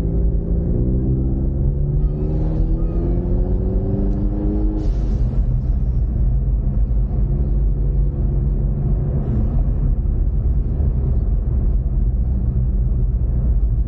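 Ford Mustang EcoBoost's turbocharged 2.3-litre four-cylinder, heard from inside the cabin, revving up under acceleration for about four seconds. It then drops as the throttle is lifted, with a short hiss from the blow-off valve adapter, and settles into a steady cruise over road rumble.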